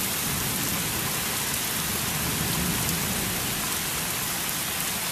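Heavy thunderstorm rain pouring steadily, an even rushing hiss.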